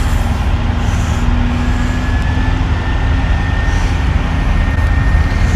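Heavy construction machinery engine running steadily, a loud even rumble with a faint steady whine above it.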